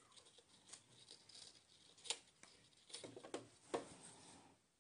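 Faint rustling and a few soft clicks from a knit blouse and a strip of newspaper being handled and smoothed beside a sewing machine's presser foot. The machine is not running.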